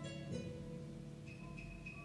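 Quiet instrumental background music, single notes sounding one after another.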